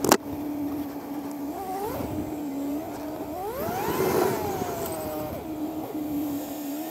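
Suzuki GSF1200 Bandit's inline-four engine running in city traffic, its revs climbing briefly, then climbing higher to a peak about four seconds in and falling away as the bike slows. A sharp click right at the start.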